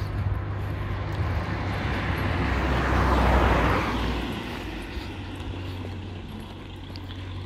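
A car driving past, its noise swelling to a peak about three seconds in and then fading away.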